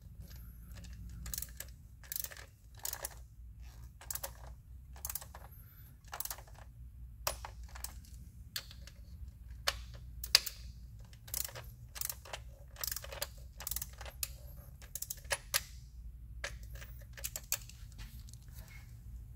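Torque wrench clicking as the anchor bolts of a fuel-injector tool are tightened to 7 ft-lb: a string of short metallic clicks, irregularly spaced, about one or two a second.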